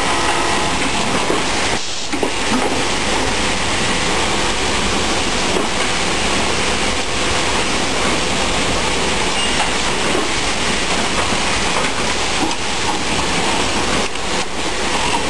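Steady, loud mechanical din of industrial sewing machinery running, with a brief dip about two seconds in and a couple of short sharp sounds near the end.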